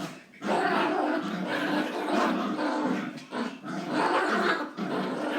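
Two dogs fighting, growling almost without a break, with a few short pauses.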